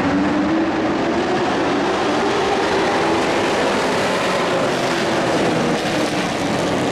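A pack of dirt-track racing trucks running at speed, their engines blending into one loud, continuous sound. One engine note rises in pitch over the first second or so.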